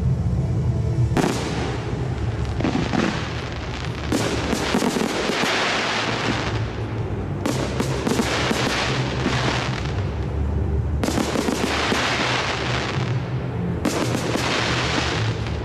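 Large aerial fireworks display: shells bursting in waves about every three seconds, each burst trailing off into dense crackling, over accompanying music.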